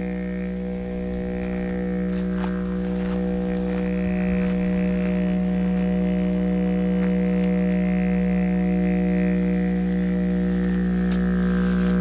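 Didgeridoo music: one low drone held steadily, its overtones shifting slowly as it is played.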